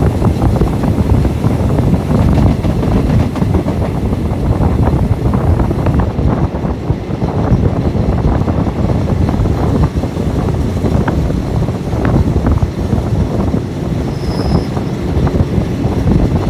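Railway passenger coach running along the track, heard from an open window: a steady rumble of wheels on rail with wind buffeting the microphone and a few sharp clacks.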